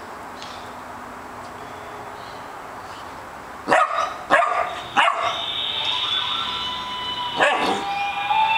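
Labrador puppy barking at a bone: three short barks about half a second apart some four seconds in, and one more near the end, with background music coming in after the barks.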